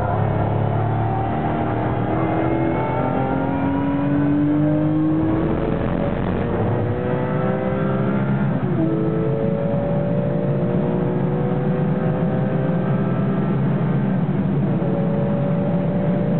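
Porsche 996 GT3 RS race car's flat-six engine heard from inside the cabin, accelerating hard through the gears: the pitch climbs, drops at upshifts about six and nine seconds in, then rises more slowly with another shift near the end.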